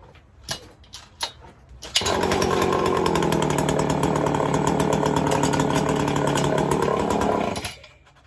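Homelite 410 two-stroke chainsaw engine fires about two seconds in after a few clicks, runs at a steady speed for about six seconds, then shuts off. The engine has a knock, which the owner suspects is a screw dropped inside it.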